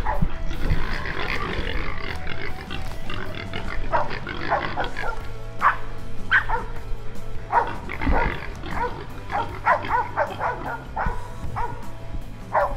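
Feral hog squealing and grunting in short, repeated calls while bayed by hunting dogs.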